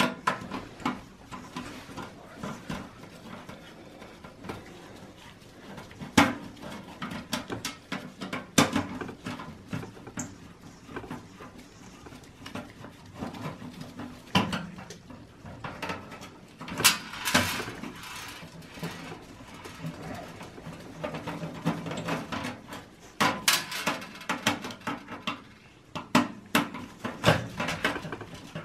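Screwdriver backing the screws out of a 92 mm case fan in a Dell XPS 8900's bare steel chassis, then the fan being worked loose: irregular clicks, scrapes and metal clinks, with several sharper knocks.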